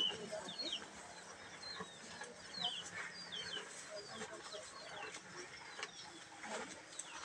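Small birds chirping: short chirps that slide downward in pitch, coming in loose clusters of two or three throughout.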